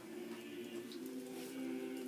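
Soft background music of held low notes, several sounding together, with faint light ticks above them.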